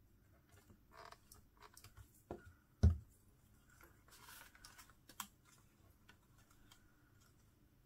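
Paper and cardstock pieces being handled on a craft table: scattered light clicks and taps with short rustles, and one sharp knock about three seconds in.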